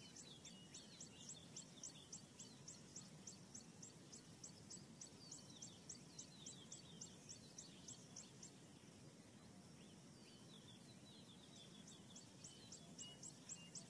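Faint bird calls: a quick, even series of high, thin chirps, about three or four a second, with lower falling notes beneath, which stops about eight seconds in and starts again near the end.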